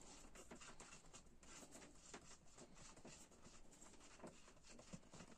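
Near silence, with faint light ticks and rustling from a plastic blender motor housing being handled and turned over.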